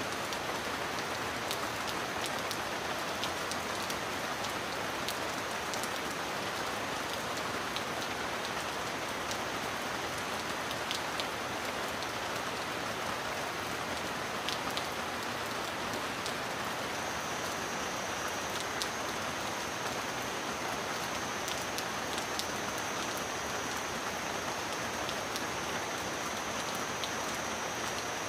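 Steady rain, an even hiss with single drops plinking now and then.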